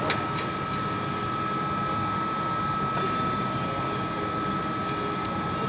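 Steady machine hum with a constant high-pitched whine, typical of a press brake's hydraulic pump unit running idle.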